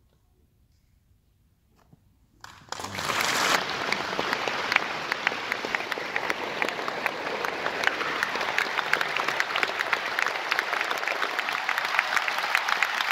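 Near silence after the last chord of a quiet solo piano piece. About two and a half seconds in, the audience breaks into dense applause that keeps going, greeting the end of the performance.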